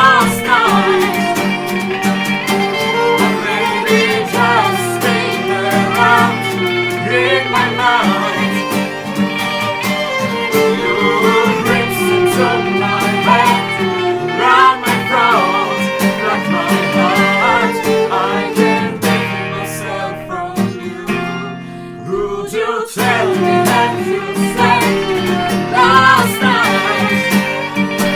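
Band playing live to a single microphone: a viola melody over lead and rhythm guitars, with singing. The playing thins out briefly about three-quarters of the way through, then comes back in full.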